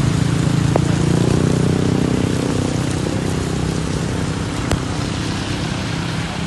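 Heavy rain falling steadily, with a low steady hum underneath through most of it and two sharp clicks, about a second in and near the end.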